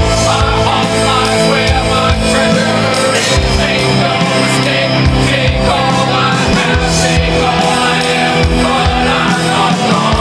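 A man singing a rock ballad over a loud band backing with strummed acoustic guitar; the sung line is "take all I have, take all I am, but I'm not gone".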